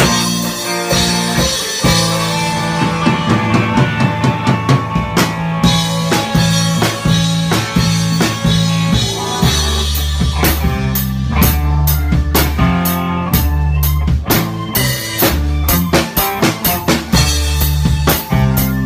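A small rock band playing live: a drum kit keeps a steady beat under electric guitar and a Korg Kross synthesizer keyboard. About halfway through, the low notes get heavier and the drum hits come thicker.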